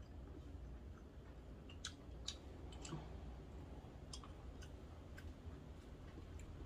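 Quiet eating of cold buckwheat noodles: soft chewing, with about seven scattered sharp clicks over a few seconds.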